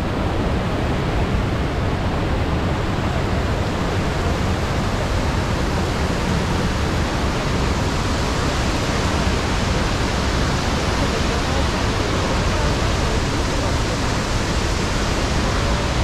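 Iguazu Falls' rapids and cascades: a loud, steady, even rush of falling and churning white water.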